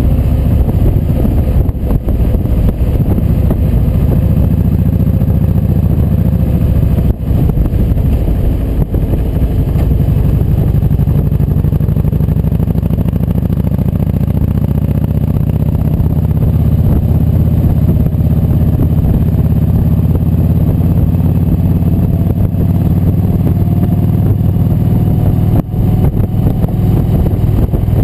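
Kawasaki Vulcan 1700 Voyager's V-twin engine running at cruising speed, heard from the motorcycle itself with wind noise. The engine note rises slowly through the second half as the bike gently gains speed.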